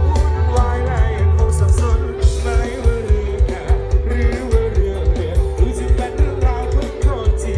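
Live rock band playing through a loud PA system, with a steady drum beat, heavy bass and a vocal or lead-guitar melody, heard from within the audience.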